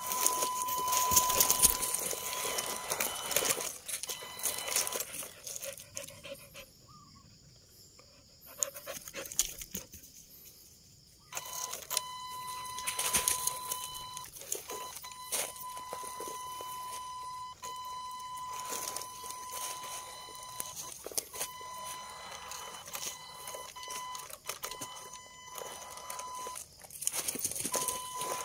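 RC rock crawler's electric drive giving a steady high whine as it creeps along at low throttle, with crackling and scraping as its tyres climb over dry leaves and rock. The whine stops for about five seconds from about six seconds in, then resumes.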